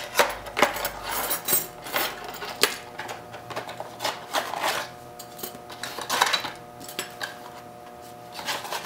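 Metal CPU-cooler mounting brackets clinking and clattering on a tabletop as they are tipped out of a small cardboard box, in many short knocks, with cardboard and paper rustling.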